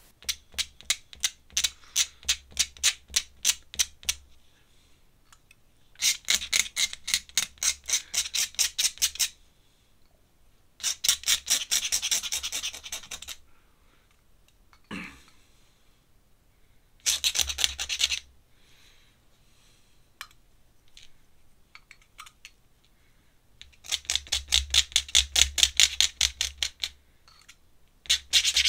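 Ink pen scratching on paper in quick hatching strokes, about five strokes a second, in runs of one to four seconds with short pauses between.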